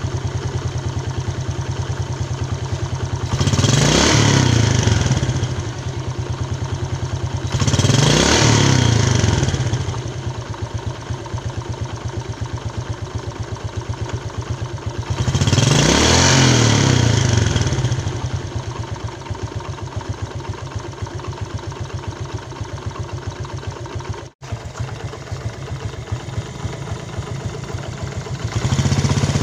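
Yamaha New Jupiter Z single-cylinder four-stroke motorcycle engine idling with a rough, harsh note. It is revved up and let fall back to idle three times, and rises again near the end. The roughness is what the mechanic traces to a worn starter one-way clutch.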